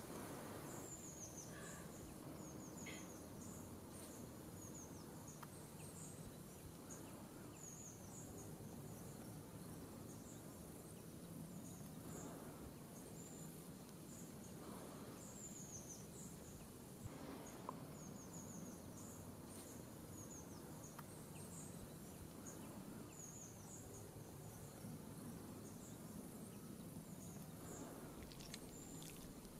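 Quiet outdoor ambience with faint, high chirps repeating irregularly about once a second over a soft steady background.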